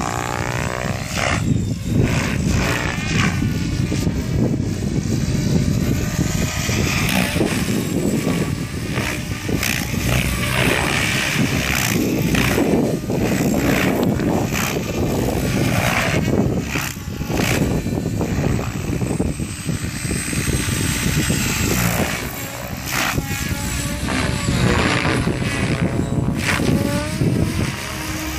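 Compass 700 radio-controlled helicopter flying aerobatics: rotor blade whoosh and drivetrain whine throughout, rising and falling in pitch as it swoops, flips and passes by.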